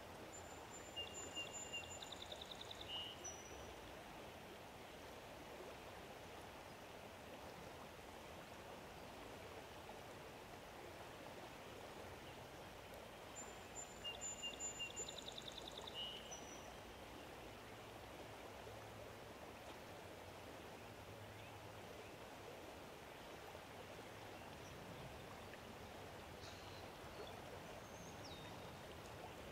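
A songbird sings the same short phrase twice, about a second in and again about fourteen seconds in: a high whistle, then a fast trill. Under it runs a faint, steady rushing background like a stream. A few other short bird calls come near the end.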